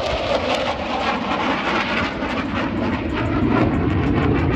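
Jet noise from an F-16 fighter's single turbofan engine as it flies a pass during its demonstration: a continuous, loud roar that swells slightly toward the end.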